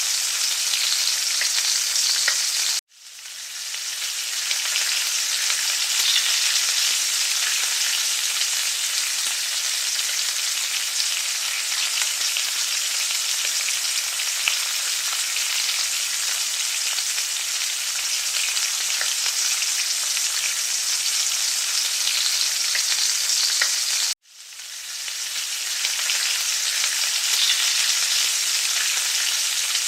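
Eggplant patties sizzling steadily in hot frying oil, with a fine crackle. The sizzle cuts off abruptly twice, about 3 seconds in and near 24 seconds, and swells back in over a second each time.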